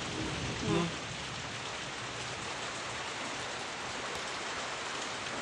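A steady, even hiss throughout, with a short voice-like sound about a second in.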